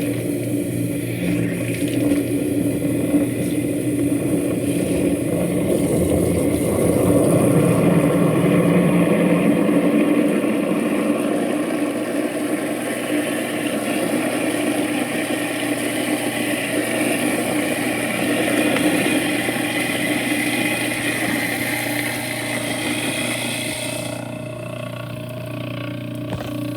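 InSinkErator garbage disposal running steadily, its motor humming under a rushing noise. The rushing fades near the end while the hum carries on.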